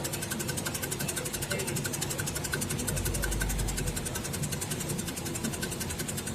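Electric onion and cassava slicing machine running steadily, its motor and blade making a fast, even ticking rhythm.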